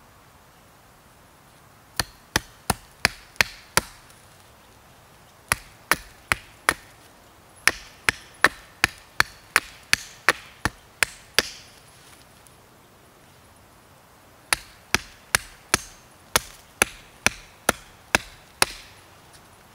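Small hatchet chopping at the lower end of an upright wooden pole: sharp wood-on-steel strikes, about two or three a second, in several runs broken by short pauses.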